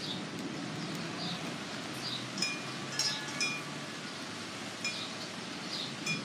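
Steady rain falling in a backyard, with a few metallic chiming clinks about two and a half to three and a half seconds in and short high chirps now and then.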